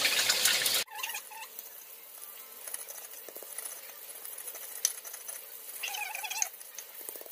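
Fish frying in hot oil in a wok, a loud sizzle that cuts off under a second in. Then a stone pestle crushing and grinding chillies, shallots and garlic in a stone mortar: soft scattered taps and scrapes, with a couple of brief squeaks.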